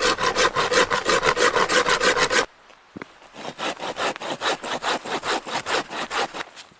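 Hand saw cutting through wood in quick, even back-and-forth strokes, about five a second. The sawing breaks off abruptly about two and a half seconds in, then resumes more quietly and fades.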